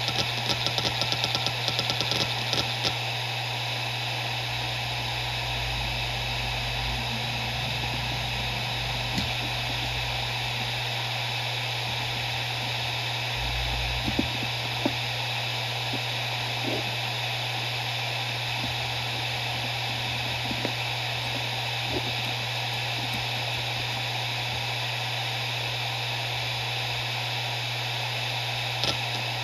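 Maxtor MaXLine Plus II 250 GB 7200 RPM hard drive spinning at speed, with a steady hum and whine. For about the first three seconds there is a rapid flurry of head-seek clicks, then a few scattered single clicks.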